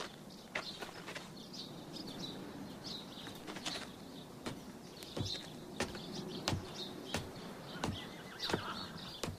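Quiet outdoor ambience: a low background hush with scattered sharp clicks and knocks, and faint short chirps like small birds.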